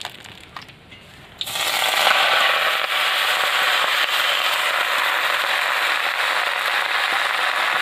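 Washed, still-wet cauliflower leaves dropped into hot oil in a wok, setting off a loud, steady crackling sizzle that starts suddenly about a second and a half in as the water on the leaves hits the oil.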